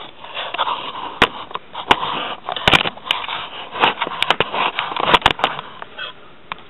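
Handling noise from a camera being set up and adjusted by hand: irregular rustling and scraping with sharp clicks and knocks, dying down about six seconds in.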